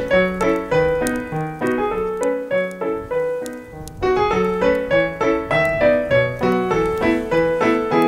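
Background piano music: a lively run of notes, several a second, over a steady bass line.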